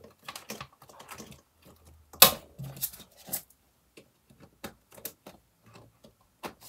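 Laminated dividers and plastic zip envelopes being flipped over the metal rings of a ring-binder budget planner: irregular clicks, taps and rustles, with one sharp click a little over two seconds in.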